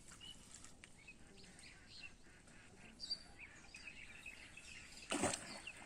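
Small birds chirping faintly now and then over a quiet outdoor background, with one short, sharp noise about five seconds in.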